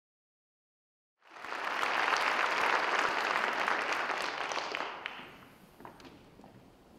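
Audience applauding, cutting in about a second in and dying away after a few seconds, with a few scattered claps as it fades.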